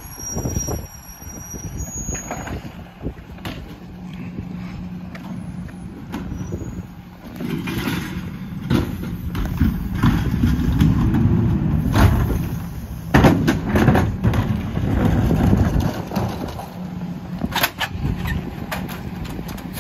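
Peterbilt split-body Heil rear-loader garbage truck's diesel engine running, with a brief high squeal right at the start. About eight seconds in the engine grows louder and busier for several seconds, with a few sharp knocks in the middle and near the end.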